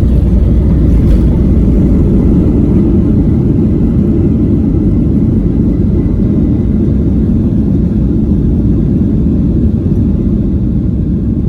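Jet airliner engines and airflow heard from inside the passenger cabin: a loud, steady low rumble.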